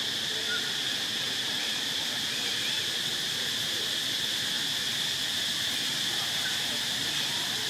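Steady, high-pitched drone of an insect chorus.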